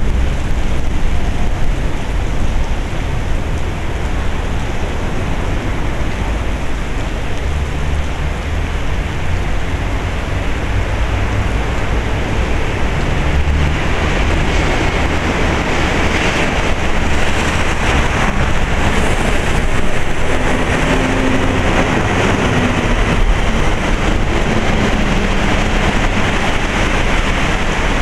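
Torrential typhoon rain pouring steadily, with a low rumble of wind underneath. The downpour grows heavier about halfway through.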